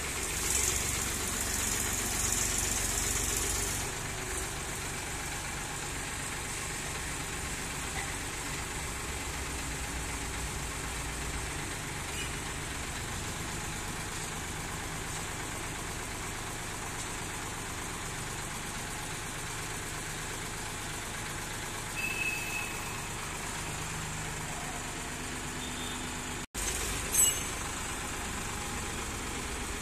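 Massey Ferguson 7250 tractors' three-cylinder diesel engines running while the hitched tractors pull against each other in a tug-of-war. Louder for the first few seconds, then steady, with a brief cut-out and a click near the end.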